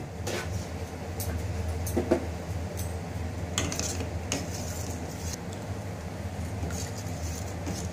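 A spoon stirring thin, watery semolina dosa batter in a vessel, with scattered light clinks of metal against the pot over a steady low hum.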